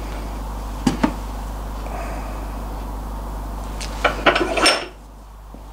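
Hard clicks and a short clatter of knocks on a workbench as a fork-oil bottle is set down and the arms of a cast-iron Armstrong lever arm damper are taken in hand: two light clicks about a second in, then a burst of knocks around four seconds in. A steady low hum runs underneath and drops away shortly before the end.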